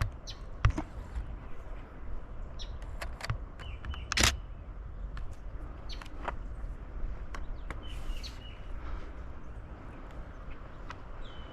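Outdoor ambience with short bird chirps scattered through it and a low steady background. Small clicks are dotted throughout, and one sharper, louder click comes about four seconds in.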